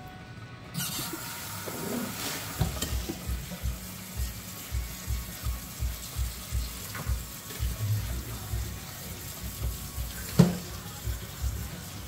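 Kitchen faucet sprayer running water over cut green beans in a metal colander in the sink, starting just under a second in, with the beans being turned by hand. Background music with a steady beat plays underneath, and there is a single knock about ten seconds in.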